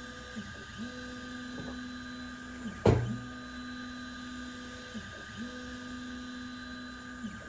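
ACMER 2500 mW mini laser engraver running an engraving job: a steady motor whine held at one pitch that dips briefly about every two and a half seconds, over steady higher tones. A single sharp click about three seconds in.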